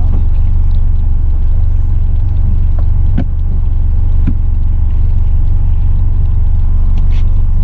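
Boat motor running steadily under way, a loud low rumble, with a few short knocks about three and four seconds in and again near the end.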